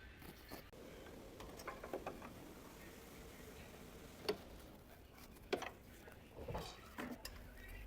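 Faint, scattered clicks and knocks of hand tools and metal brake parts being handled, with sharper taps about four and five and a half seconds in and a few more close together near the end.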